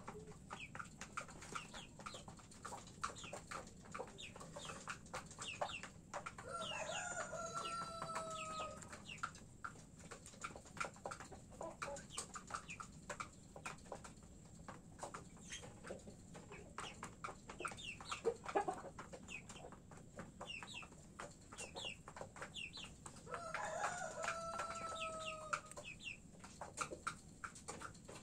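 Rooster crowing twice, each crow about two and a half seconds long ending in a long held note, the second about seventeen seconds after the first. Between them, chickens cluck softly and there is a steady patter of clicks from beaks pecking at feed in dishes.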